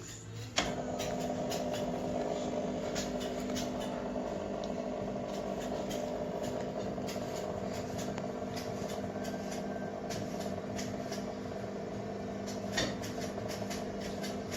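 Semi-automatic espresso machine's pump clicking on about half a second in, then running with a steady hum.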